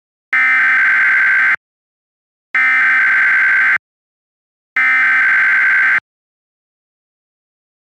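Emergency Alert System SAME header for a Required Weekly Test: three identical bursts of buzzy digital data tones, each about a second and a quarter long, with a second's gap between them.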